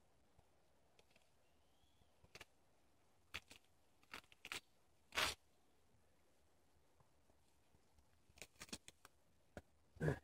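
Scattered short rips and crackles of moss and licorice fern roots being pulled by hand from a mossy tree trunk, the loudest about halfway through and just before the end.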